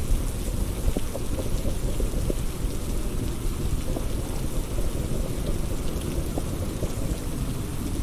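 Heavy rain falling steadily, with a dense low rumble and scattered ticks of individual drops striking.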